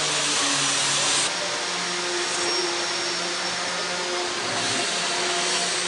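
Steady whir of workshop machinery, with a high hiss that drops away a little over a second in.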